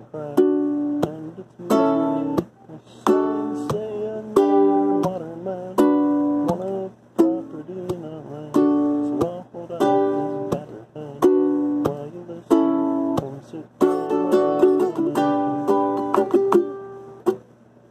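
Acoustic ukulele strummed in chords with a steady strumming rhythm, changing chords every few strums. The strumming stops just before the end.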